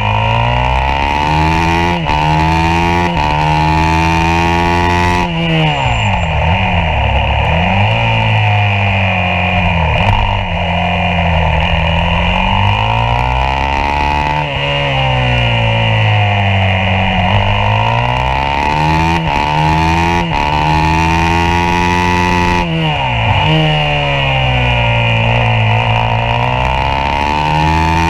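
Yamaha YZ450F's single-cylinder four-stroke engine at racing revs, heard onboard: the pitch climbs through several quick upshifts, each a brief break, then drops away under braking, over and over.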